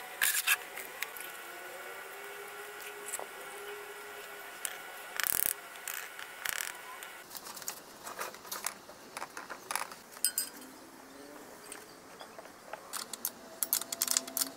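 Scattered knocks and clicks from hand work, with one loud knock about five seconds in; near the end comes a quick run of metallic clicks as an open-end spanner tightens steel hex bolts on a post's base flange.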